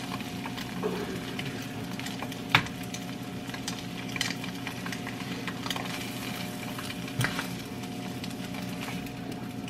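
An egg frying in a nonstick skillet, sizzling steadily with scattered small pops, while a silicone spatula scrapes under it with a couple of soft knocks. A steady low hum runs underneath.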